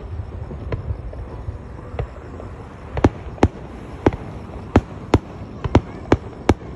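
Fireworks going off: a run of sharp, separate bangs, one about two seconds in, then about two a second from three seconds on. Under them is a low rumble that fades during the first second.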